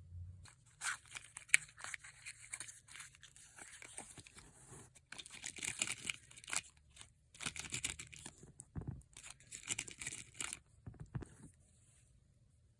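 Close-up handling of a Kolb Baby mini revolver: irregular small metallic clicks, scrapes and rustling, with one sharp click about a second and a half in and busier stretches in the middle.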